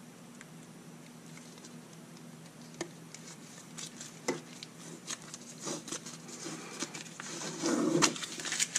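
Protective paper being peeled by hand off a thin laser-cut styrene panel: crinkling and rustling with scattered sharp clicks, getting busier and louder toward the end.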